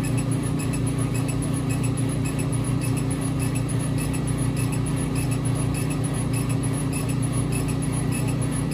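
Epilog Fusion M2 40 laser cutter raster-engraving wood: a steady mechanical hum with faint, regular ticks a few times a second as the laser head sweeps back and forth across the lettering.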